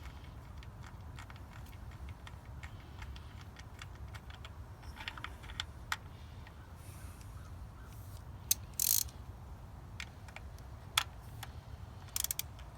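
Socket ratchet clicking in quick, uneven runs as a 10 mm bolt is spun down by hand, with a few louder metal clinks of the tools.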